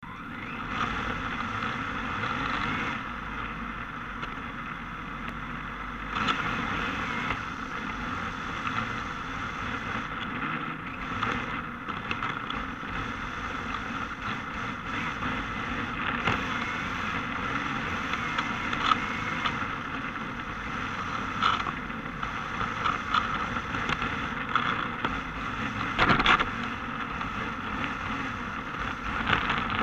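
Onboard sound of a Yokomo DRB electric 1/10 RC drift car running, heard from a camera mounted on its body: a steady drivetrain and motor hum mixed with tyre noise on asphalt. A few sharp knocks stand out, the loudest about 26 seconds in.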